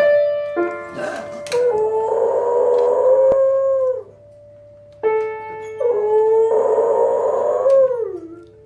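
A dog howls along to piano chords. There are two long howls, each sliding down in pitch as it ends. Sustained piano chords come in near the start and again between the howls.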